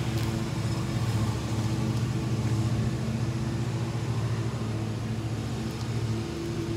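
Steady low mechanical hum of a running motor, even in pitch and level throughout.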